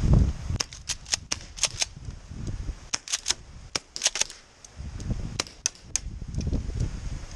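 Airsoft guns firing: sharp snapping shots in quick clusters, several in the first two seconds, more around three and four seconds in, and a few more around five and a half seconds, over low rumbling handling noise.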